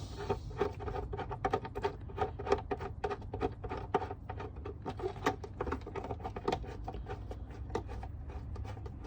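Quick, light clicks and ticks from metal bolts and hand tools being handled, several a second and uneven.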